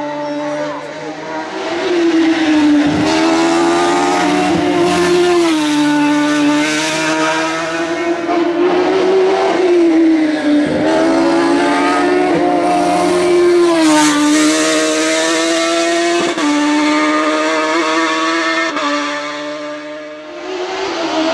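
Competition car engine working hard at high revs, its pitch climbing and then dropping sharply every few seconds as it goes up through the gears and on and off the throttle.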